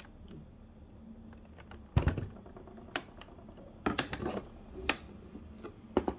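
Unboxing handling noise: a scattering of sharp clicks and knocks as the coffee machine and its packaging are handled. The loudest knock comes about two seconds in.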